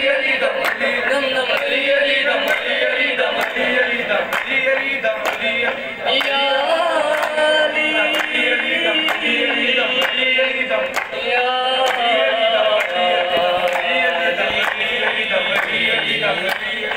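Qawwali sung by a group of male voices, a lead singer with a chorus joining in, kept in time by regular handclaps.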